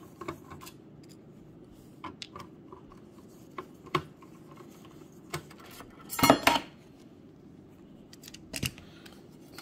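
Scattered small metallic clicks and clinks as screws come out of the NAS's metal memory-compartment cover plate and the plate is lifted off, with the loudest clatter a little past six seconds.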